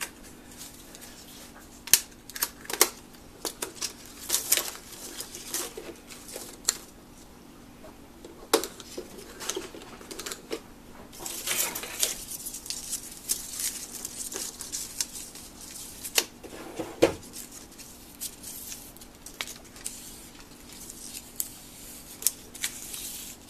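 Irregular plastic clicks, taps and scraping as a rolled 35 mm filmstrip is handled and pushed into the film slot of a filmstrip viewer, with a faint steady hum underneath.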